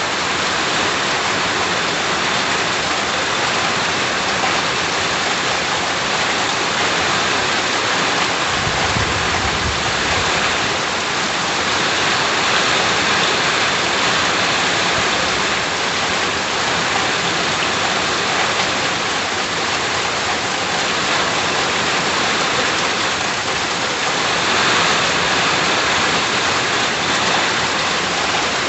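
Steady heavy rain falling and hitting surfaces around a house, a dense even hiss. There is a brief low rumble about nine seconds in.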